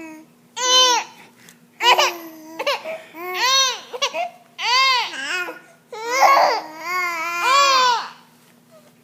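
A 3.5-month-old baby cooing and squealing in about six high-pitched, drawn-out vocal calls, each rising and falling in pitch, as she practises making sounds.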